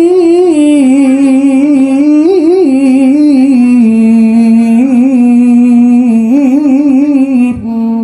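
Qiroat, melodic Quran recitation: one voice holds a long, ornamented note with wavering turns, drawing out the closing words "wasi'un 'alim". The pitch settles lower about halfway, and the note stops just before the end. The voice sounds nasal from flu.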